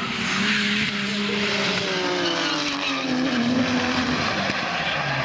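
Drift car's engine running at high revs, its pitch slowly falling, with the rear tyres squealing and skidding in a slide.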